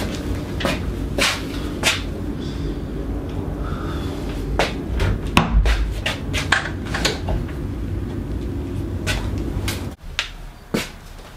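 An interior door being handled: an irregular string of sharp knocks and clicks over a steady low hum, which cuts off near the end.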